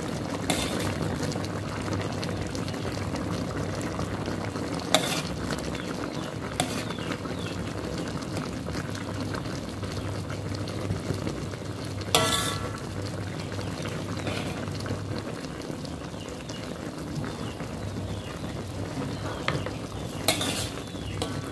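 A metal spoon stirs and scrapes around an aluminium wok of chicken simmering in thick coconut-milk sauce, over a steady bubbling hiss. It clinks against the pan now and then. The loudest clink comes about twelve seconds in and rings briefly.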